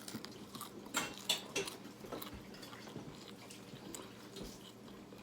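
Scattered soft clicks and wet ticks of a person eating close to the microphone, with a couple of louder clicks about a second in.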